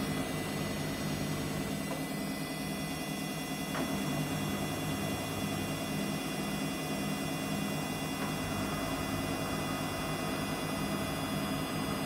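Samsung front-loading washing machine spinning its drum at speed with a duvet inside: a steady motor whine over a low hum.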